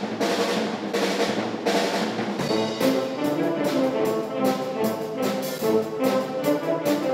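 Concert wind band playing an upbeat medley of 1960s pop tunes: brass and saxophones over a steady drum-kit beat. Tubas and string basses come in about two and a half seconds in.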